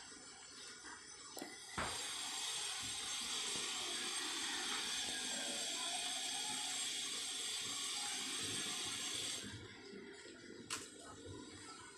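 A steady rushing hiss that starts suddenly with a click about two seconds in and stops abruptly after about seven and a half seconds, followed by a single sharp click.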